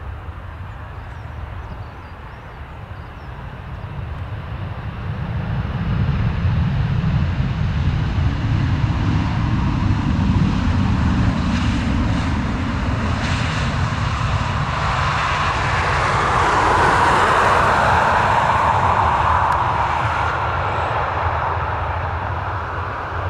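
Boeing 737 airliner landing and rolling out on the runway: a steady jet engine rumble that builds over the first several seconds, swells into a louder roar about two-thirds of the way through as the jet passes, then eases slightly.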